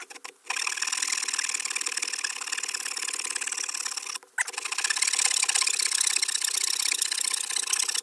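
Victorinox pocket-knife saw blade cutting through a small wooden bar with fast back-and-forth strokes, teeth rasping in the wood. It starts about half a second in and breaks off briefly about four seconds in.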